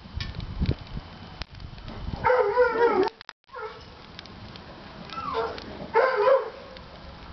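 Wood fire crackling in a chiminea, with scattered sharp cracks. Louder animal calls that waver in pitch come through twice, about two seconds in and again around five to six and a half seconds in.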